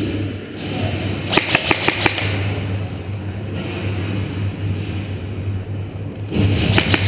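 Airsoft guns firing rapid bursts, a clatter of about ten shots a second, once about a second and a half in and again near the end, over a steady low hum.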